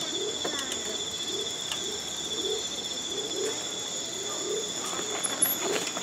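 Night ambience: insects trilling steadily at a high pitch, with short, low, rising calls repeating about twice a second.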